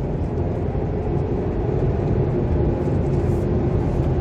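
Cabin noise of a car driving on a road: a steady low rumble of tyres and engine, with a faint steady hum over it.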